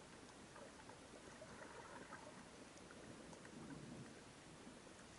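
Near silence: faint underwater ambience, a low rumble of moving water with scattered small clicks.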